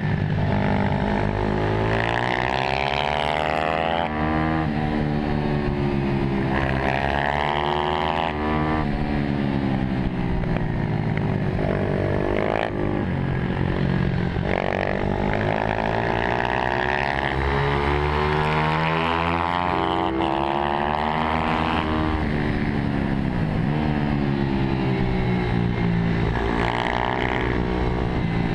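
Mini GP motorcycle engine heard from onboard, revving hard through a lap. Its pitch climbs as the bike accelerates out of each corner and drops away on braking into the next, over and over.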